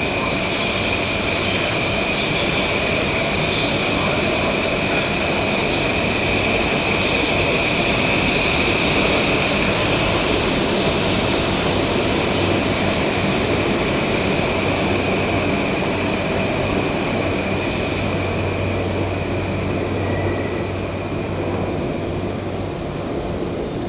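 Electric train running past a station platform: a steady running noise with a sustained high-pitched tone, easing a little near the end.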